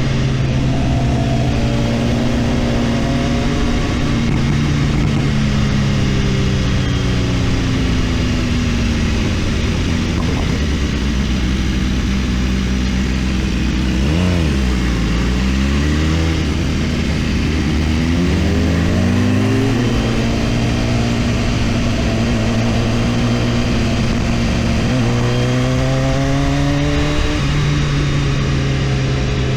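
BMW S1000RR inline-four engine running under way, its pitch falling and climbing several times with throttle and gear changes, under steady wind noise.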